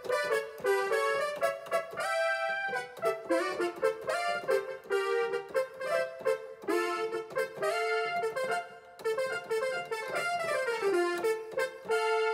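Roland XP-10 multitimbral synthesizer played on its keyboard: a melody of single notes in the middle register, with a quick stepwise falling run about ten seconds in.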